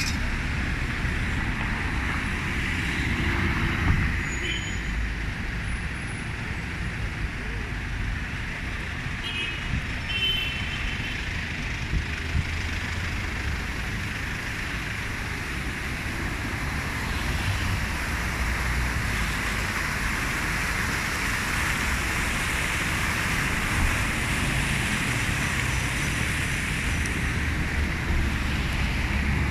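City street traffic noise: a steady, continuous rumble of passing cars and engines.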